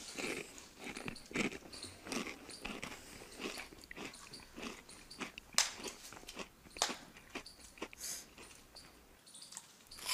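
A man eating spicy instant noodles fast with his fingers: irregular slurping and chewing, a string of short wet mouth sounds with a few sharper ones along the way.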